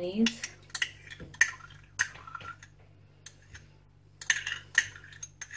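A spoon scraping and clinking against a dish several times while scooping mayonnaise for a sauce.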